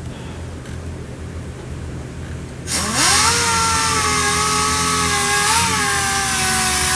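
A handheld shop power tool starts about three seconds in, winding quickly up in pitch to a steady high whine with a loud hiss, and keeps running to the end. A low steady hum lies underneath before it starts.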